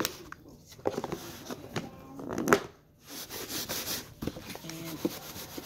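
Red plastic lid of a food-storage tub being handled and pressed on, with scattered plastic clicks, knocks and rustling; the sharpest snap comes about halfway through.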